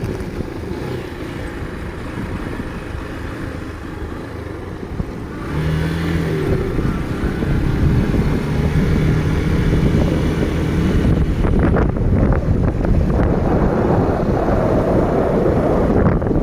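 A vehicle engine running on the road, with wind on the microphone. About five seconds in it gets louder, with a steady engine hum.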